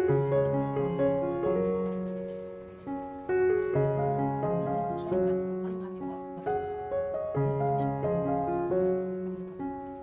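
Background piano music: a melody of held notes over changing chords.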